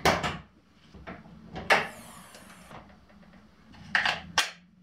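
A few sharp clunks as a Lexus SC300's hood is released and raised: a click at the start, a louder clunk with a brief metallic ring under two seconds in, then two knocks about four seconds in as the hood goes up.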